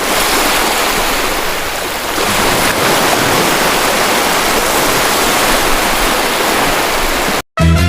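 Sea waves breaking and washing on the shore, a steady rush of surf. It cuts off abruptly near the end and music begins.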